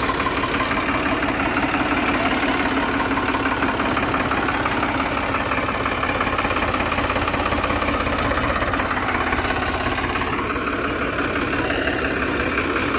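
Farmtrac 60 tractor's three-cylinder diesel engine running steadily under load while pulling a direct-seeding rice drill.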